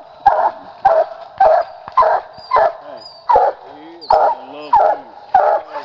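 Young coonhound barking steadily at the base of a tree, about one bark every half second and more, the treeing bark that signals game up the tree.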